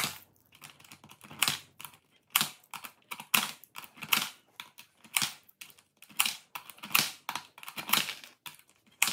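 Coins dropped one at a time through the slot of a digital coin-counting piggy bank, each landing with a sharp click; about a dozen clicks at irregular spacing.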